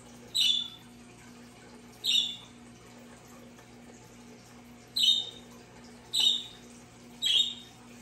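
Five short, high bird chirps at uneven intervals, each about a third of a second long, over a faint steady hum.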